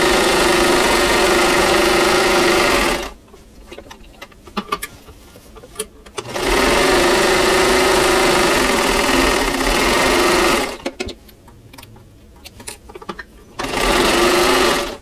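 1952 Singer 15-91 sewing machine running steadily while stitching a seam, stopping about three seconds in, running again for about four seconds, and starting once more for a short run near the end. Small clicks and fabric handling in the pauses.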